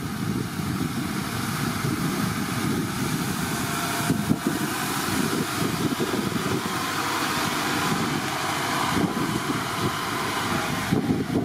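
Diesel engine of a Mercedes-Benz Unimog U5023 fire engine running steadily, heard close by, with more hiss added from about four seconds in.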